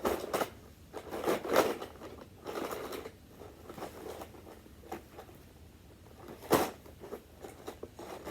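Small plastic toys and their packaging being handled: scattered rustles, scrapes and clicks, with the sharpest clicks about a second and a half in and again about six and a half seconds in.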